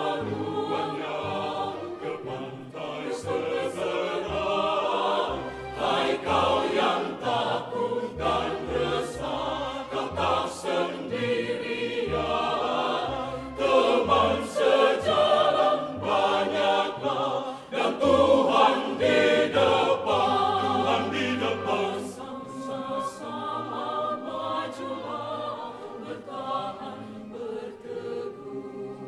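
Mixed choir of men's and women's voices singing a church choral piece in parts under a conductor, swelling louder through the middle and growing softer near the end.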